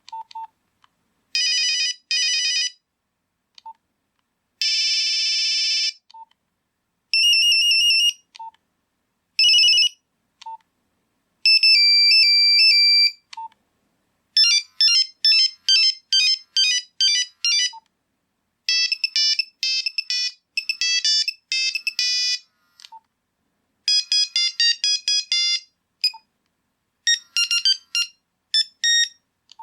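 Nokia 3310 monophonic ringtones played one after another: about nine different short beeping melodies, each a second to a few seconds long, with a single short lower beep in most of the gaps between them.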